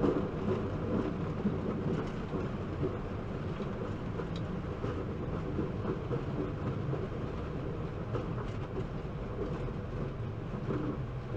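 Steady rumble in a Boeing 737-800 cockpit as the airliner rolls along the runway after touchdown, the wheels running over the runway surface, with a few light knocks.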